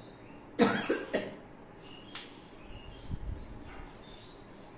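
A cough in two short bursts, about half a second and a second in, then a single sharp click; faint bird chirps sound through the second half.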